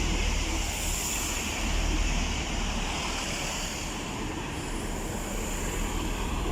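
Pair of Class 165 diesel multiple units rolling into the platform, a steady rumble of diesel engines and wheels on the rails with a hiss above it.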